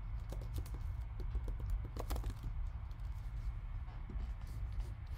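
Typing on a computer keyboard: a quick, irregular run of key clicks, thickest around two seconds in, over a low steady hum.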